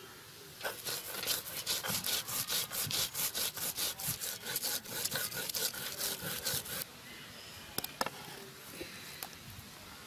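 Cumin seeds being ground on a flat grinding stone with a hand-held stone roller: rhythmic gritty rubbing strokes, three or four a second, that stop suddenly about two-thirds of the way through, followed by a few light clicks.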